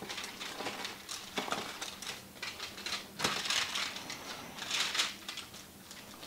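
Hands squishing and pressing raw ground beef meatloaf mix in a pan lined with aluminum foil, with crinkling of the foil. The sound comes in short, irregular bursts, with two louder rustles about three and a half and five seconds in.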